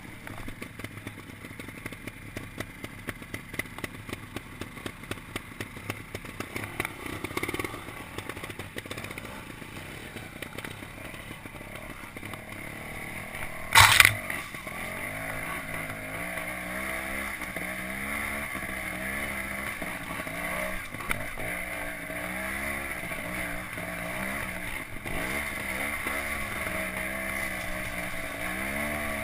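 Trials motorcycle engine running at low revs, its pitch rising and falling as the throttle is blipped over rough ground, with frequent knocks and rattles from the bike. One loud thump about halfway through.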